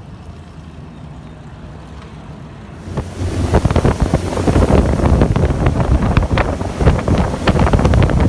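A motorboat running on open water: a low steady engine hum, then about three seconds in, loud wind buffeting on the microphone and rushing water as the boat picks up speed.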